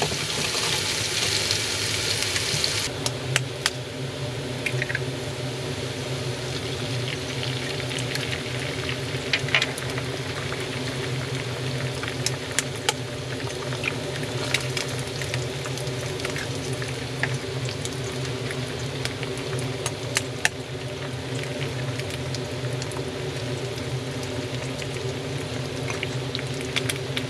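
Food frying in oil in a pan: a loud sizzle for about the first three seconds, then a quieter steady sizzle with occasional sharp clicks. A steady low hum runs underneath.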